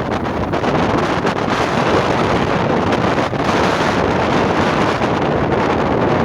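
Strong wind buffeting the microphone over heavy surf from a rough, violent sea: a loud, steady rushing noise.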